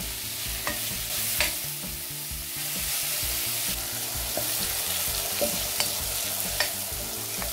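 Sliced chestnut mushrooms sizzling in oil in a non-stick pot while a spatula stirs them, with a few light knocks of the spatula against the pan. The mushrooms are being sweated, their water cooking off.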